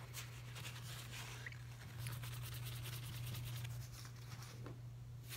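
Paper towel rubbing on a knife blade, wiping off the last of the etching liquid and decal from a freshly electro-etched logo. Scratchy strokes throughout, quickening into a run of rapid back-and-forth strokes from about two to four seconds in, over a steady low hum.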